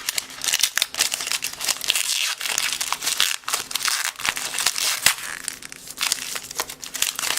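Crinkling and rustling as a baseball card pack's wrapper and its cards are handled, in quick irregular bursts.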